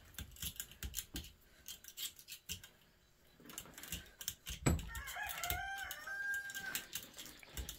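Faint clicks and scrapes of a small screwdriver working copper winding pieces out of a dryer stator, with a sharper click past the middle. About five seconds in comes a wavering, bird-like call lasting under two seconds.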